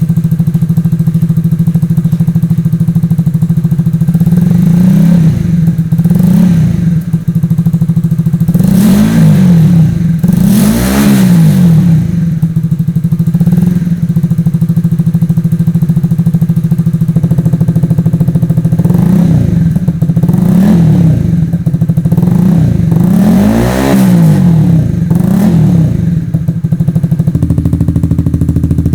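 Honda CBR150R's single-cylinder engine running through a 3Tech Tridente F20 aftermarket exhaust, idling steadily and blipped up and back down about eight times, mostly in pairs.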